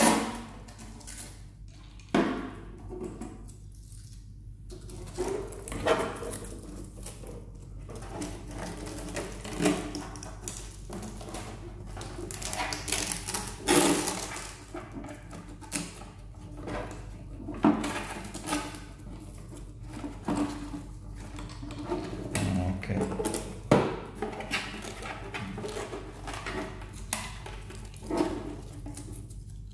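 Hands handling plastic tubing, push-in connectors and a clear plastic buffer tank against a portable air sampler's case: irregular clicks, knocks and rustles, the loudest knocks about two seconds in, about fourteen seconds in and near the end. A steady low hum sits underneath.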